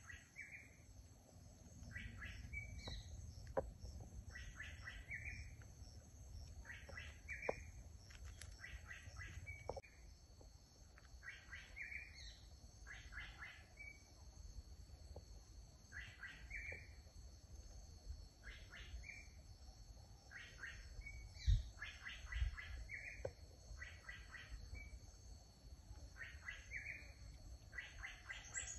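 A bird calling outdoors, repeating a short phrase of a few quick chirped notes every second or two, over a low rumble. A louder low knock comes about two-thirds of the way through.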